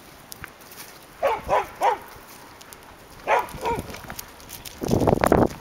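A dog barking in play: three quick barks about a second in, two more about two seconds later, then a louder jumble of noise near the end.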